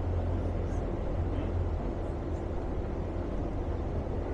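Tour boat's engine running steadily while cruising, a low, even drone heard on board.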